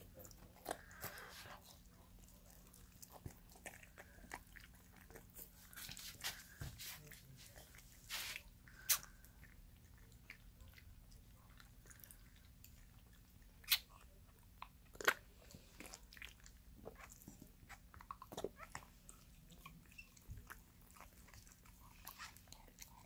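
Corgi mother licking and mouthing her newborn puppy to clean it, a faint run of irregular wet smacks and clicks with a few sharper clicks.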